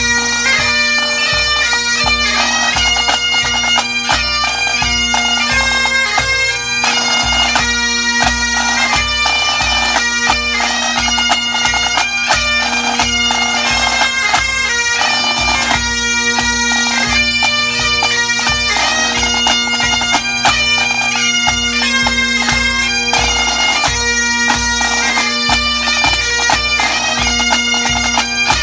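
Pipe band playing a tune: Great Highland bagpipes with their steady drones under the chanter melody, with snare drums and a bass drum keeping a regular beat.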